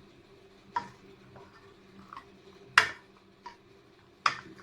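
A spoon knocking and clinking against a cooking pot a few times while chicken curry is stirred, the loudest knock about three seconds in, over a steady low hum.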